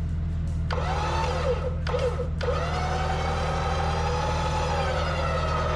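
Winch motor whining as it pulls in the line under load: a short pull about a second in, a brief pause, then a longer steady pull of about three seconds. A steady low engine hum runs underneath.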